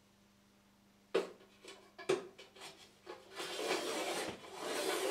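Flat steel locking bar being slid in under a TV wall bracket: two sharp metal knocks about one and two seconds in, a few lighter clicks, then a steady scrape of the bar sliding along the bracket.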